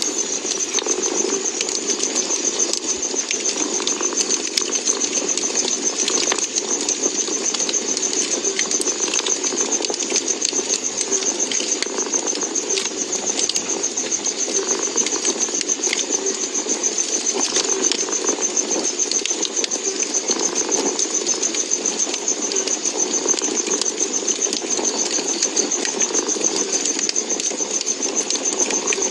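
A cat purring steadily, mixed with the crackling and popping of a wood fire in a fireplace: small sharp pops scattered irregularly over the purr.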